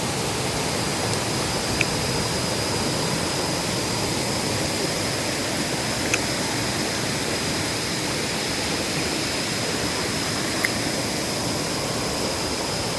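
Steady rush of flowing river water, with a thin, steady high-pitched tone above it and a few faint ticks.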